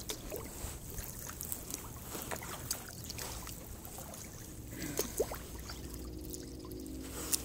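Kayak paddling: the paddle blades dip and splash, water trickles and drips off them, and short sharp clicks and knocks run throughout.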